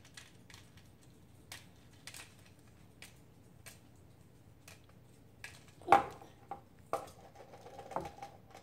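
A small plastic toy figure is handled on a table: scattered light clicks and taps, with a much louder knock about six seconds in and a few more knocks after it.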